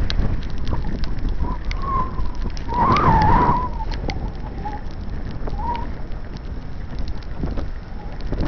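Steady low rumble of wind on the microphone during travel along a wet path, with scattered clicks. About three seconds in comes a short wavering squeal, with a few fainter ones after it.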